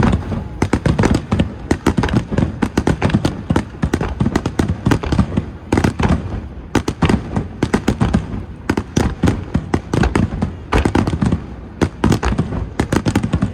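Aerial fireworks shells bursting in a dense, rapid barrage, many sharp bangs a second overlapping one another.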